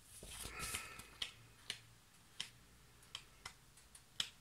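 Stiff printed pattern sheets being handled: a short paper rustle in the first second, then about six faint, sharp ticks at uneven intervals.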